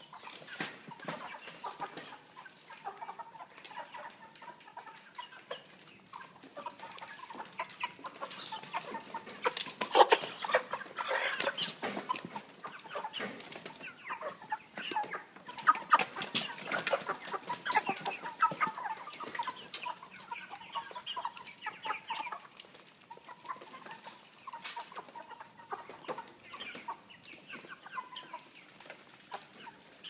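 A crowd of broiler chickens, heavy 3 kg birds, clucking and calling in a cage. Many short sharp taps and knocks come through it, busiest and loudest around ten seconds in and again around sixteen to twenty seconds in.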